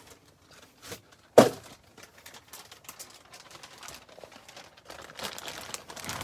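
Clear plastic packaging crinkling and rustling as it is handled and pulled off a doll, thickening over the last second or so. A single sharp knock about a second and a half in is the loudest sound.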